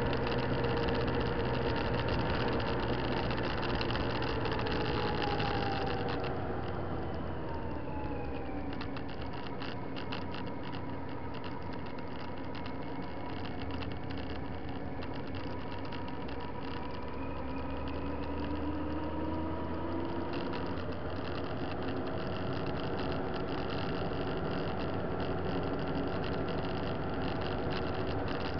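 Motorcycle engine running under way, with steady wind and road rush. The engine note falls as the bike slows about a quarter of the way in, then rises again as it speeds up past the middle.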